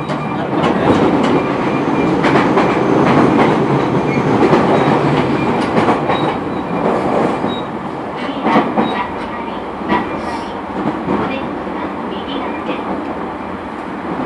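JR East E231 series 900 commuter train running, heard inside motor car MoHa E230-901: a steady rumble of wheels on rail with clickety-clack from the rail joints, several sharper clacks in the second half.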